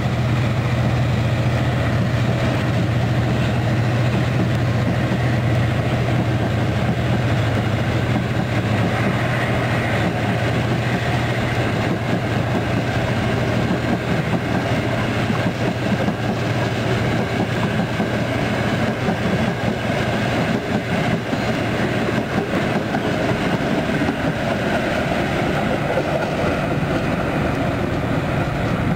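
A long diesel-hauled passenger train's carriages rolling steadily past on the rails as it departs. Under this runs the steady low drone of its two diesel-electric locomotives at the head, easing after about the middle as they draw away.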